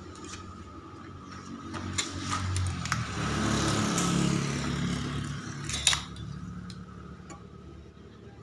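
Stick arc welding on a stainless steel exhaust pipe: a few sharp clicks as the arc is struck, then a crackling sizzle for about four seconds that ends in a sharp snap about six seconds in. A faint steady whine runs underneath.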